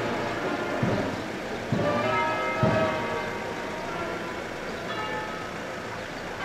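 Church bells ringing: several strokes about a second apart, each leaving long overlapping ringing tones.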